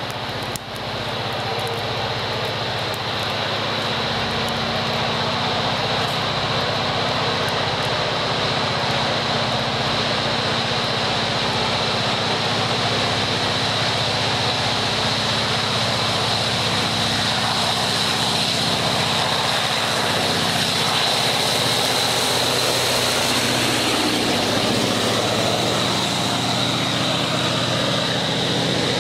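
A GM-licensed diesel-electric locomotive's engine running under load, with a steady high whine over its low throb, growing gradually louder as the train comes by. Near the end the rolling rumble of flat wagons' wheels on the rails joins in.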